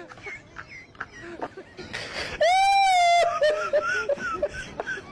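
A person's high-pitched squeal, held for under a second about halfway through, among softer vocal sounds and scattered clicks.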